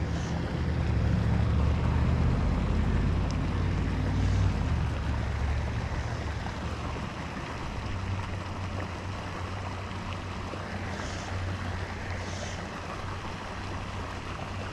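Wind noise on the microphone with a low, steady engine hum underneath that fades after about four or five seconds.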